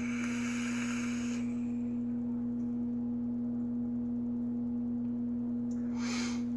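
Soft hiss of air drawn through an e-cigarette's dripping atomizer fired on a mechanical mod, lasting about a second and a half, with a second brief hiss near the end. A steady low electrical hum runs under it and is the loudest thing throughout.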